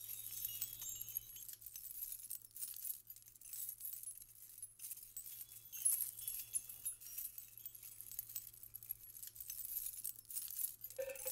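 Stacked metal bangle bracelets jingling and clinking softly on a moving wrist, in repeated small clusters, over a faint low hum.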